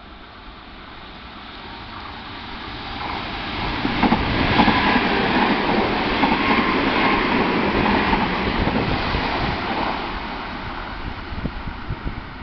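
Nankai 50000 series Rapi:t electric train passing through the station without stopping. The rolling of wheels on rail builds as it approaches and is loudest for several seconds from about four seconds in as the cars go by. It then fades as the train runs off.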